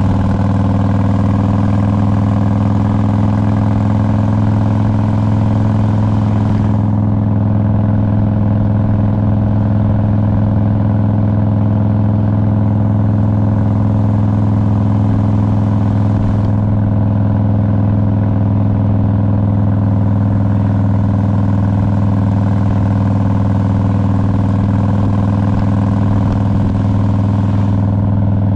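2001 Harley-Davidson Road King's Twin Cam 88 V-twin engine running at steady revs, its pitch holding level.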